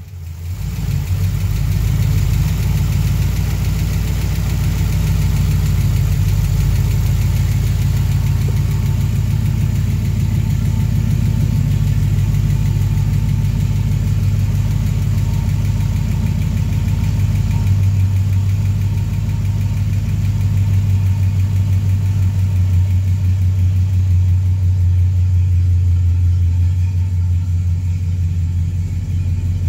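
Ford 289 small-block V8 with FiTech throttle-body fuel injection idling steadily while warming up from a cold start. A ticking off the left bank comes from a loose rocker arm.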